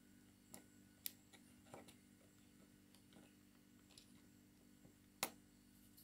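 Faint, scattered clicks of small metal parts: the handle knob and ball bearings of a GHOTDA DC 2000 spinning reel being fitted together by hand. The sharpest click comes about five seconds in.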